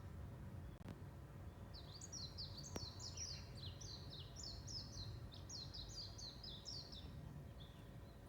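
Small birds chirping: from about two seconds in, a busy run of quick, high chirps that slide downward, several overlapping, lasting about five seconds, with a few single chirps around it. A low, steady background rumble runs underneath.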